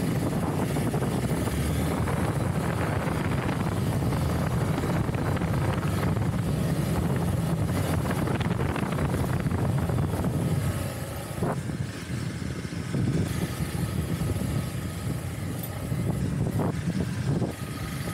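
Motorcycle engine running steadily while riding, heard from the bike itself; it eases off for a couple of seconds about eleven seconds in, then picks up again.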